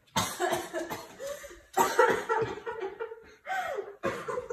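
A woman coughing and spluttering in several fits, with some laughter mixed in, after a drink of water went down the wrong way.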